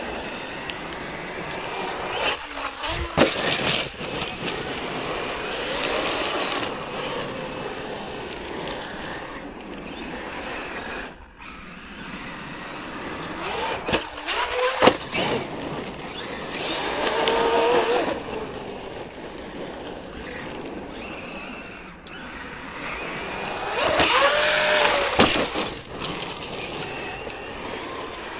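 Traxxas Maxx V2 RC monster truck being driven hard on loose gravel. Its brushless motor whines up and down in pitch with the throttle over a steady noise of the tyres on gravel, with a few sharp knocks about 3 s, 14 s and 25 s in.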